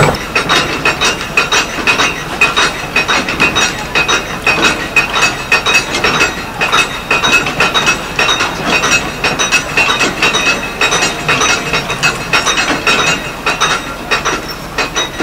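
Hand-cranked geared mast windlass on a Thames sailing barge, its pawl clicking over the ratchet in a steady run as the mast is wound up on the wire rope. The clicking fades a little near the end.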